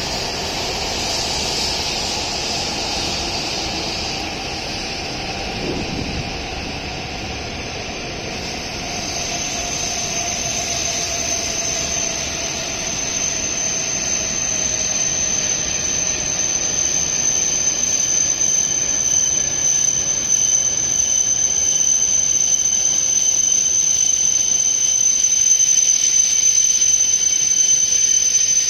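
E7 series Shinkansen decelerating along a station platform as it arrives, its running noise carrying a whine that falls slowly in pitch as the train slows. A high, steady squeal joins about nine seconds in and the whole sound grows louder near the end as the lead car passes.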